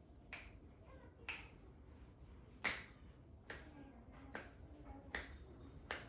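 Finger knuckles cracking as they are pulled one at a time during a hand massage: seven sharp pops at an even pace, a little under one a second, the third the loudest.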